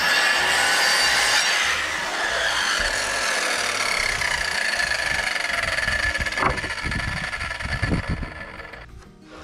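Circular saw cutting across a stack of lumber rafters, its high whine winding down about two seconds in. Then several wooden knocks and thumps as the boards are handled, around six to eight seconds in.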